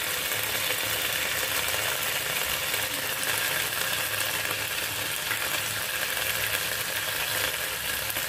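Hot mustard oil sizzling and crackling steadily in a heavy-bottomed pan around a lump of fried onion paste and ginger garlic paste, with a silicone spatula stirring through it.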